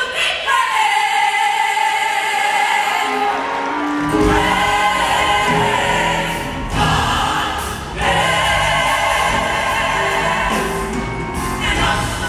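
Gospel choir of mixed men's and women's voices singing in parts. The low end is thin at first, and a fuller, deeper sound comes in about four seconds in.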